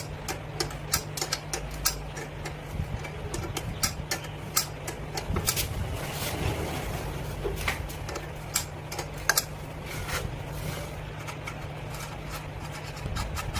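A steady low machine hum, with scattered light metallic clicks and taps of a small tool working on a motorcycle's front drum-brake linkage during brake adjustment.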